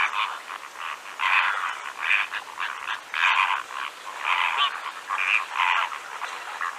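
Water birds calling: short, harsh calls repeated about once or twice a second, eight or so in all, with brief gaps between them.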